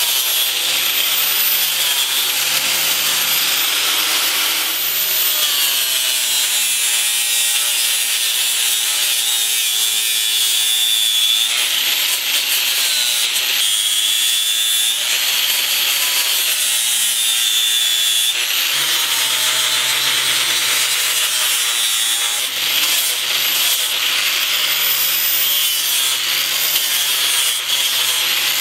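DeWalt angle grinder with a flap disc running continuously as it grinds and shapes birch wood. Its motor whine rises and falls in pitch as the disc is pressed into the wood and eased off.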